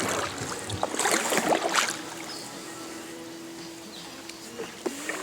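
Paddle strokes in the water from a small paddled boat: splashes, drips and a few knocks in the first two seconds, then quieter water hiss with a faint steady hum.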